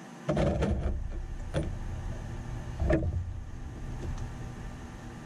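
Wooden boards being handled and knocked against a tabletop while a box is fitted together: a cluster of knocks about a third of a second in, then two single knocks, over a low rumble.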